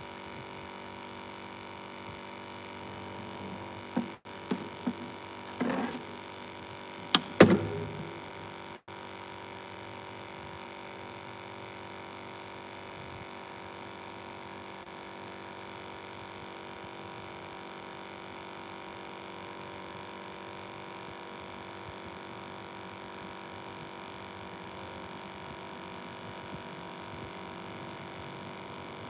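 A steady electrical-sounding hum with a few sharp knocks about four to six seconds in and one heavier thump a little after seven seconds.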